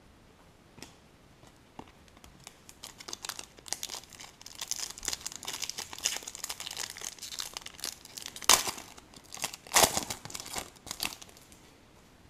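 Foil wrapper of a Select Soccer trading-card pack being torn open and crinkled. The dense crinkling starts about three seconds in, with two loud sharp crackles near the end.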